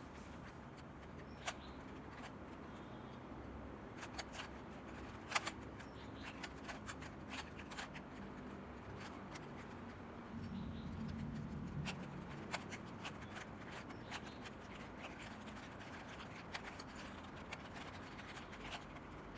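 Plastic 3x3 puzzle cube being twisted by hand: irregular clicks and scrapes as its layers turn. A low hum comes in for a couple of seconds about ten seconds in.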